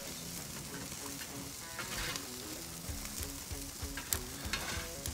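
Beef burger patties, halloumi and onions sizzling on the grate of a charcoal braai, a steady hiss with scattered crackles and pops from the fat. Soft background music runs underneath.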